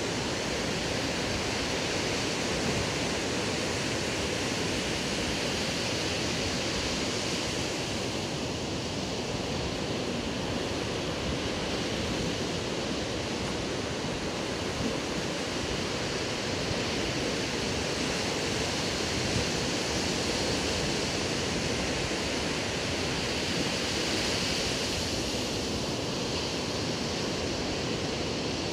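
Ocean surf breaking on a sandy beach, a steady rushing wash of water.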